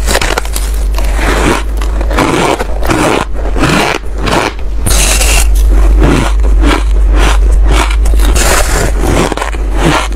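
Loud crunching as a block of frosty soft ice is bitten and chewed close to a lapel microphone, a quick run of crisp crunches several times a second.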